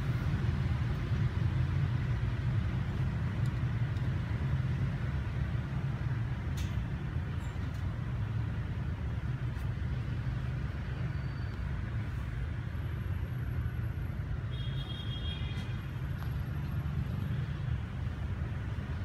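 Steady low rumble of background street traffic, with a few faint clicks and a brief high chirp about fifteen seconds in.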